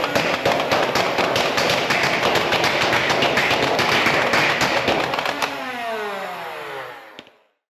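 Motorized toy foam-dart blaster firing full-auto in a rapid burst of shots over its whirring motor for about five seconds, then the motor winding down with a falling whine and stopping.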